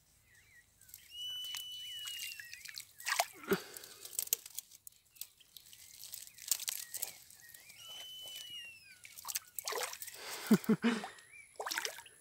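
Water sloshing and splashing in weedy shallows, with sharp knocks and crunching through brush, as a hooked jejum is pulled out. A bird whistles a drawn-out call twice.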